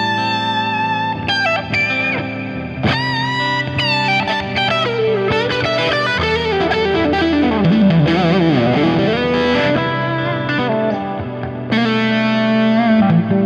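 Crunch-distorted electric guitar through a Fractal Axe-Fx III, improvising a lead over a looped rhythm part. Held notes with vibrato and bends come near the start and again near the end, with a run of fast notes winding up and down in the middle.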